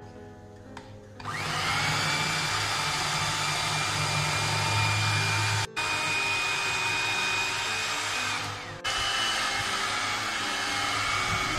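Electric mixer beating cake batter: the motor starts about a second in with a rising whine, then runs steadily, with two brief breaks.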